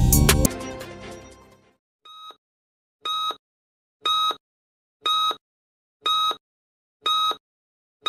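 Intro music fading out over the first second and a half, then countdown beeps: a short electronic beep about once a second, one faint and then six louder, each ending cleanly with silence between.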